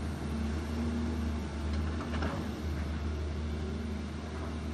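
Diesel engines of Volvo crawler excavators running with a steady low drone as the machines work, with a short hiss about two seconds in.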